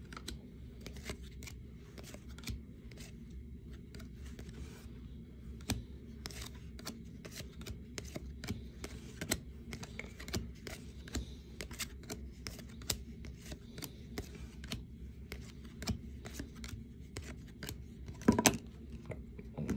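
Trading cards being handled and sorted by hand: many light clicks and flicks of card stock against card, over a steady low background hum. A brief louder sound comes near the end.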